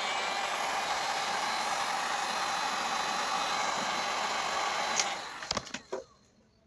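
A small electric motor whirring steadily at full speed, then switched off about five seconds in, followed by a few sharp clicks and knocks.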